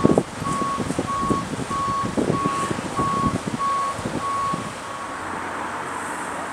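Reversing alarm of a rough-terrain forklift beeping at one steady pitch, about one and a half beeps a second, over low knocks and the rumble of the machine working. The beeping stops about five seconds in.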